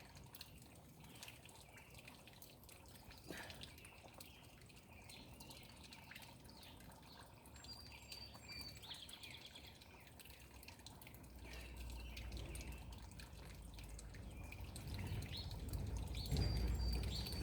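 Faint trickling water, with birds chirping now and then. A low rumble comes in about two-thirds of the way through and grows near the end.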